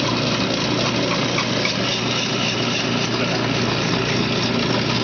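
Electric block-ice shaver running steadily: motor hum under the noise of the blade cutting a block of ice.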